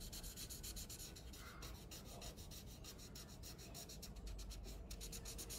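Red felt-tip marker colouring on paper in rapid short back-and-forth strokes, faint.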